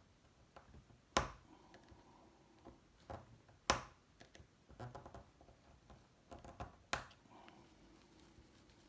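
Plastic locking tabs of a BMW iDrive controller being lifted with a tool: small scraping and clicking, with three sharp clicks, about a second in, near the middle and about two seconds before the end, as the tabs give.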